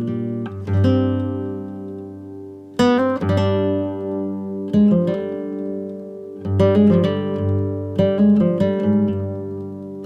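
Background acoustic guitar music: plucked and strummed chords, with notes that ring out and fade between attacks.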